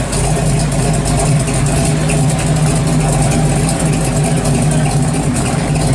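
Engine of a classic 1967–72 Chevrolet C10-style pickup running at a steady idle, with an even low note that does not change.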